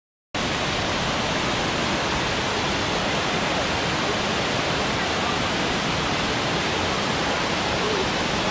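Steady, even rush of falling water from Elephant Falls, a tiered waterfall, cutting in abruptly just after the start.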